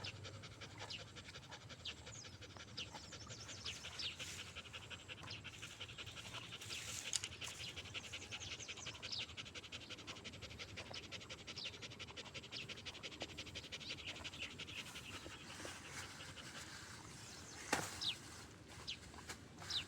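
A tired dog panting rapidly and steadily, with short high chirps scattered throughout and a couple of sharp clicks near the end.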